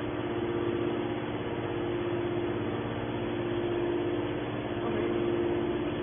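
Hydraulic power unit of a scrap metal baler running with a steady hum while the baler's lid swings open.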